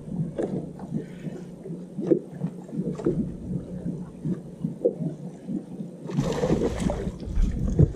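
Small waves lapping and gurgling against a bass boat's hull in short, irregular slaps, with a brief rush of noise about six seconds in.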